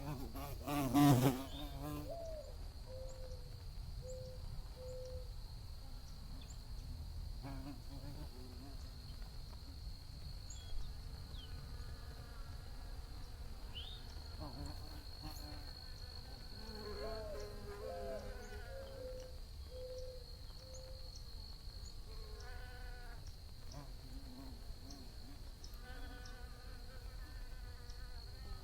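Bees buzzing as they fly past the microphone, each buzz rising and falling in pitch as it comes and goes. The loudest is a brief close pass about a second in. A steady thin high tone runs underneath.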